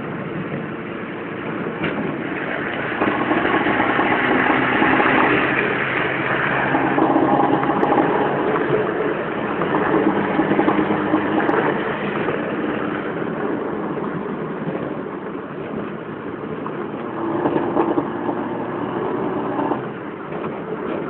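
Opel Kadett C engine running while the car is driven, heard from inside the cabin, in an engine its owner says has problems. The engine note swells and eases several times as the revs rise and fall.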